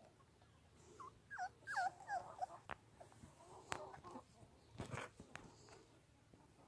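Maremma puppies whimpering: a string of short, faint, high cries that slide up and down in pitch, about one to two and a half seconds in. A few light clicks and a brief rustle follow near the five-second mark.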